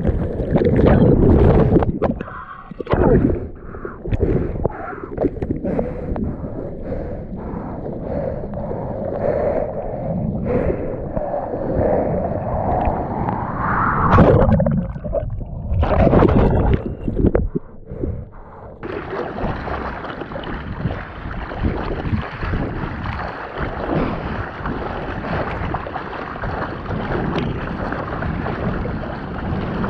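Surf water churning and bubbling, muffled as heard underwater, with irregular surges. A little under two-thirds of the way through it changes suddenly to a steadier, brighter rush of water splashing over the nose of a surfboard being paddled.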